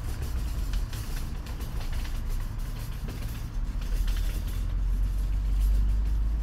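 Cat crunching dry kibble from a plastic bowl, short crisp crunches over a steady low rumble.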